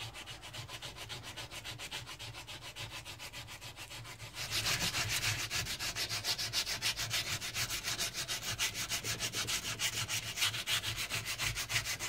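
Hand sanding of a steel knife blank held in a vise with wet-and-dry abrasive paper, in quick back-and-forth strokes of about five or six a second. The strokes grow louder a little over four seconds in. This is the polishing stage that follows draw filing.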